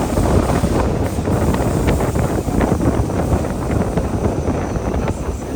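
Wind buffeting the microphone over the running rumble of a moving train, with scattered clicks and knocks of its wheels on the track.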